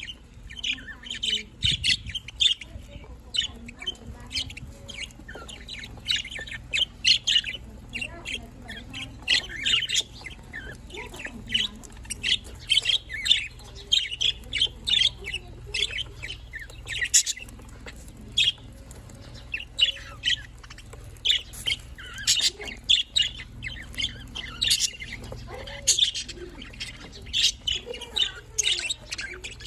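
Budgerigars chirping and chattering in quick, short calls, almost without pause.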